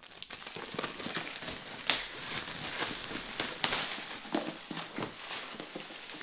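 Plastic shrink-wrap on a MacBook Pro box crinkling and crackling as it is pulled off by hand, with a few sharper crackles along the way.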